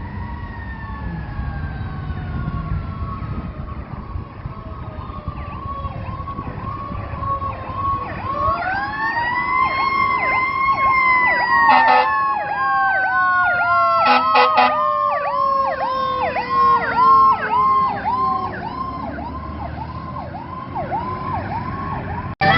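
Fire engine sirens on an emergency response. One siren tone falls slowly while an electronic siren yelps rapidly. About 8 seconds in, a siren winds up and then slowly falls off, and short horn blasts come about halfway through, over the truck's low engine rumble.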